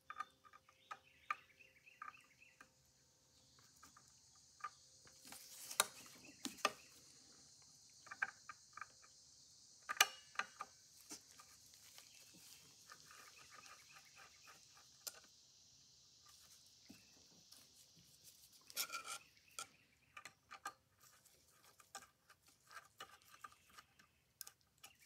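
Faint scattered clicks and scrapes of a long screwdriver working the small screw out of the governor drive gear of a Victor phonograph motor, with a few sharper metal knocks.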